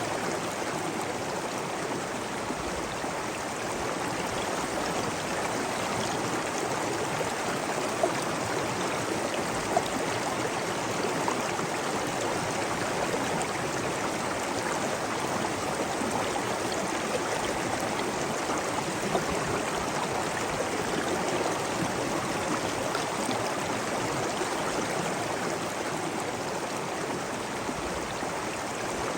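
Steady rush of flowing water over stone, with a few brief louder splashes standing out.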